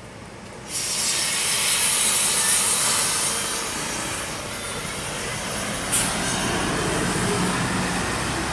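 A Mercedes-Benz coach coming round a hairpin bend and passing close: loud, steady engine and road noise with a strong hiss that starts sharply just under a second in. There is a brief, sharper hiss about six seconds in.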